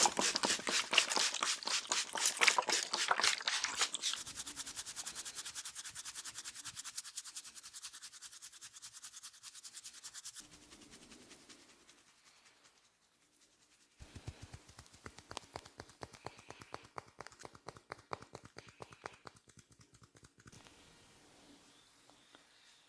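Rapid taps and crackles from a barber's head massage: a loud, fast run of strikes, then a lighter and quicker stream of clicks, a pause, and another run of rapid taps near the end.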